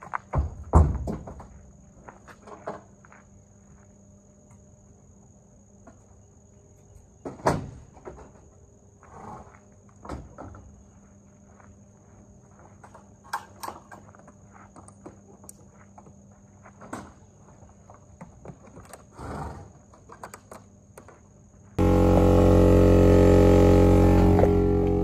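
A horse's hooves thump on the floor of an aluminium horse trailer as it steps in and loads, followed by scattered knocks and clatters from the trailer. Near the end, loud music cuts in abruptly.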